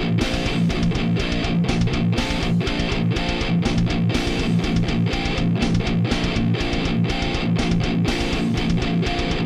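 Heavy, distorted electric guitar riffing through a Digitech RP500's Randall RG100 amp model, over a fast, steady beat of sampled drums.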